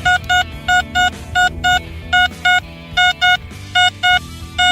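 Handheld metal-detecting pinpointer beeping in steady double beeps of one high pitch, about a pair every two-thirds of a second, as it sits over a shallow buried metal target, with background music underneath.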